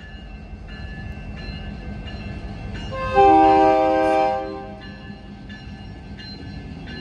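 IAIS 705 diesel locomotive sounding one loud air-horn blast of about a second and a half, starting about three seconds in, over its low engine rumble. Electronic GS Type 2 E crossing bells strike steadily underneath, about three strikes every two seconds.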